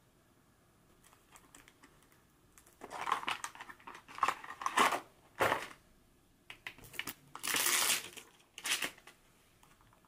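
Crinkly material being handled, crinkling and rustling in a run of separate bursts that start about three seconds in. The longest burst lasts nearly a second, near the end.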